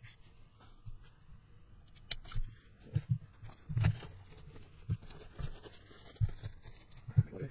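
Irregular light knocks, clicks and scrapes of a hard-plastic Tamiya M07 Concept RC car chassis being handled, turned over and set down on a cutting mat, with some dull thumps.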